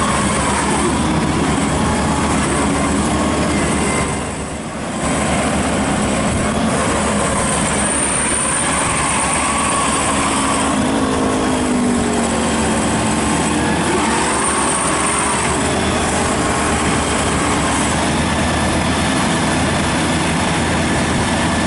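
Maxxi Bimo Extreme rice combine harvester running steadily at work in the paddy, its engine and threshing machinery giving a continuous loud drone whose pitch wavers up and down. The sound drops briefly about four seconds in.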